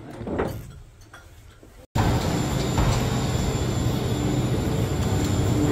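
Quiet room sound, then about two seconds in a sudden switch to the loud, steady rumble and hum of the Skyline Rotorua gondola's station machinery as cabins move through the terminal.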